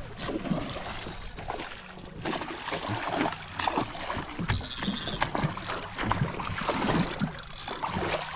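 Water splashing at the surface as a hooked dolphinfish thrashes beside a boat, with wind buffeting the microphone.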